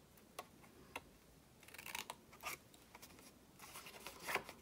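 Small scissors cutting through white cardstock: two sharp snips in the first second, then short rasping cuts around two seconds in and again near the end.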